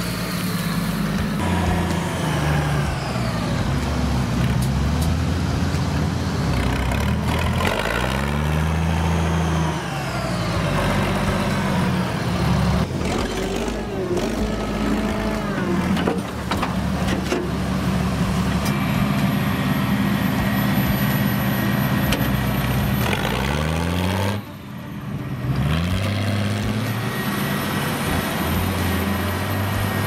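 Six-cylinder diesel engine of an International Harvester 1046 tractor running under way, its pitch rising and falling again and again as the revs change. It drops away for a moment near the end.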